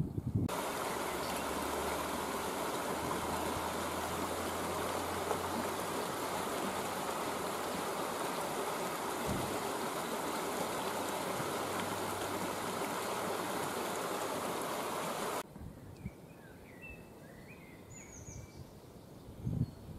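Shallow river running over rocks in small rapids: a steady rush of water that cuts off abruptly about three quarters of the way through. After that, quieter woodland with a few short bird chirps.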